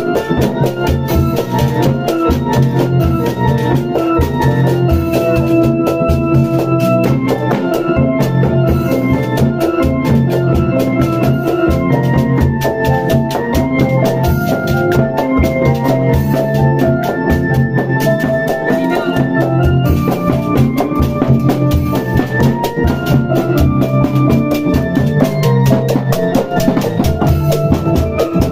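Obrog sahur music: a large plastic water barrel beaten as a bass drum, in dense, fast drumming over a melody played through a loudspeaker sound system.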